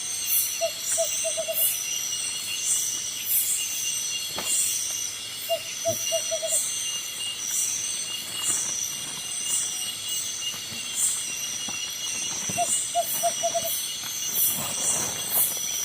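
Tropical forest insect chorus, several shrill steady tones with a pulsing beat about once a second. Three times an animal call of five or six quick low notes in a run cuts through.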